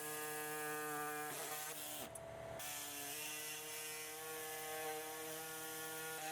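Power tool cutting through the driveshaft's original carrier frame: a steady mechanical whine whose pitch dips briefly about a second and a half in.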